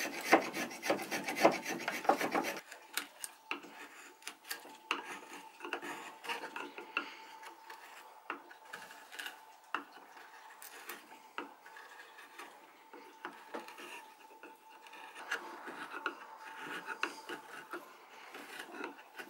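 Brass spokeshave shaving oak in quick, loud rasping strokes that stop suddenly about two and a half seconds in. After that a chisel pares the oak by hand: quieter slicing cuts with scattered sharp ticks.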